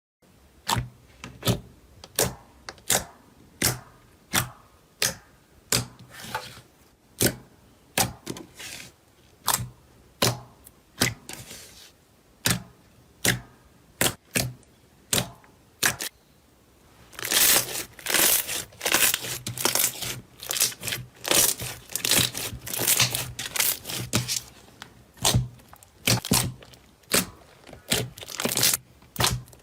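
Slime being squeezed and poked, with sharp popping clicks at a little under two a second. From a little past halfway it turns to a denser run of crackling and popping.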